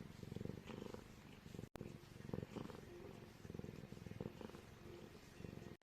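A cat purring close up, in low rumbling phrases of about a second that rise and fall with its breathing; the sound cuts out sharply for an instant about a second and a half in.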